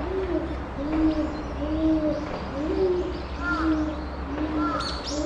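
Chimpanzee hooting: a long, regular series of low hoots, about two a second and alternating between a lower and a higher pitch, with short shrill calls joining near the end.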